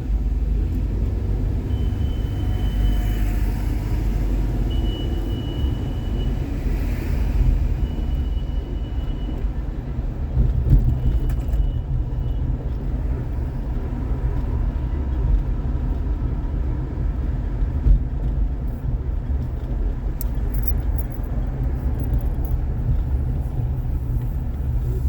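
Car being driven: a steady low rumble of road and engine noise, with a faint thin high tone coming and going in the first half.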